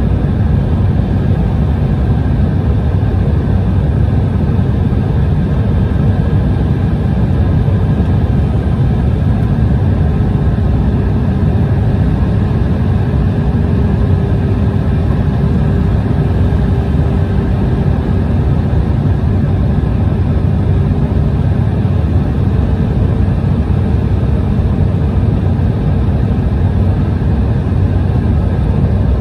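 Jet airliner cabin noise on final approach, heard from a window seat beside the engine: a steady engine and airflow roar. A faint whine in it drops in pitch about ten seconds in and rises again about two-thirds of the way through.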